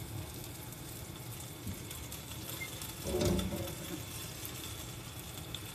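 A gyoza-skin roll frying in oil in a pan: a steady, faint sizzle with small crackles. A short, muffled low thud comes about three seconds in.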